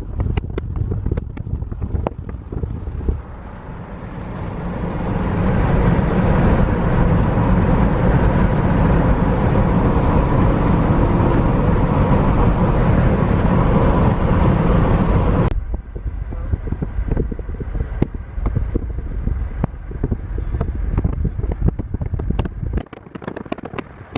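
A car driving: steady road and wind noise that builds up over a couple of seconds and holds loud, then cuts off abruptly about two-thirds of the way through, giving way to quieter road noise with scattered light clicks.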